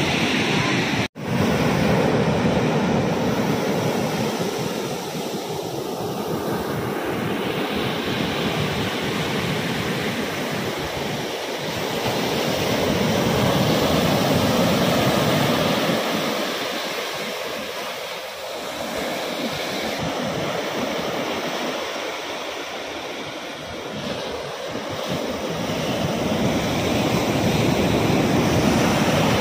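Ocean surf breaking on a sandy beach: a steady rush of waves that slowly swells and fades. The sound cuts out for a moment about a second in.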